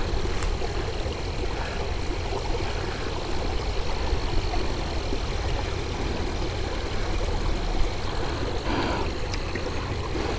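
Steady outdoor background noise: an even low rumble with a faint, steady high-pitched tone above it and no distinct events.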